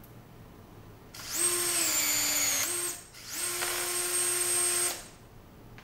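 Brushless cordless rivet tool's motor whining as it pulls a 4.8 mm rivet, its pitch sagging under load midway and picking up again before it stops. After a short pause the motor runs again at a steady pitch for about a second and a half, the tool's automatic return stroke of the pulling mandrel.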